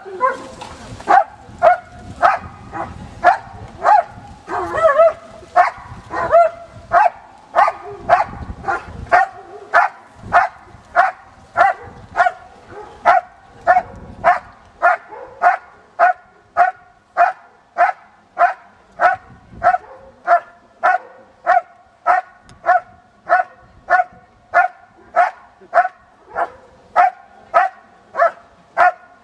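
German Shepherd barking loudly and steadily, about two barks a second in an even rhythm, typical of the sustained hold-and-bark on the helper in protection work.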